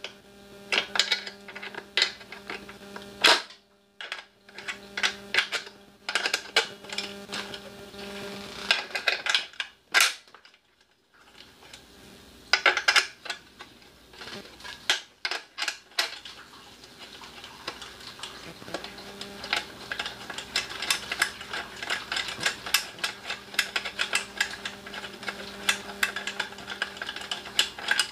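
Metal hand tool clicking and clinking against a small portable generator's engine as bolts are undone to remove its faulty CDI ignition module, with rapid clicking through the last third. A steady low hum runs underneath.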